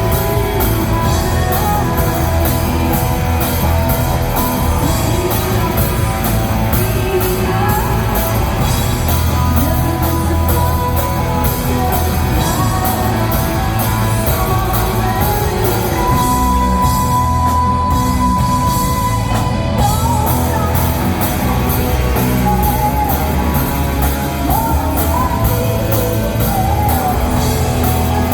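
Rock music with singing and a steady beat, with a long held note partway through.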